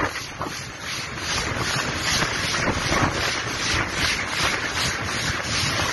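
Wind buffeting a phone microphone held out of a moving train's window, over the steady running noise of the train on the track.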